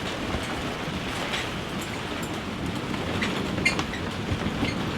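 Heavy rain during a thunderstorm: a steady rush of noise with scattered sharp taps of drops.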